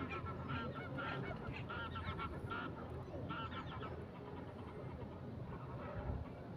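Geese honking repeatedly, a busy flurry of calls in the first three seconds or so, then fewer and fainter toward the end, over a low steady rumble.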